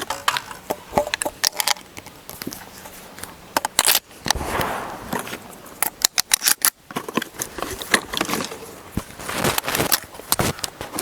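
Irregular clicks and rattles from handling a shotgun and its shells while reloading for another round, with no gunshot.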